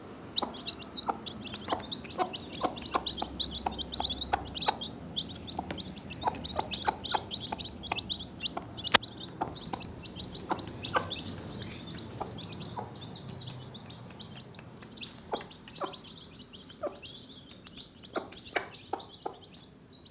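Baby chicks peeping: many rapid, high chirps overlapping all the way through. Short sharp taps are mixed in, the loudest about nine seconds in, and the peeping thins out somewhat in the second half.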